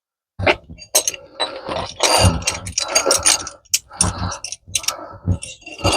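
Irregular metallic clinking, rattling and knocking of loose metal being handled and wrapped around a car's front wheel hub, starting suddenly a moment in.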